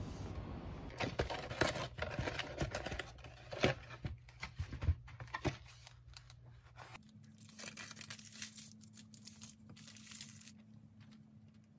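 Paper bag and cardboard cake box rustling and crackling as cake slices are unpacked, with dense sharp crackles over the first few seconds. About seven seconds in it turns to softer crinkling as the clear plastic film is peeled off a cake slice.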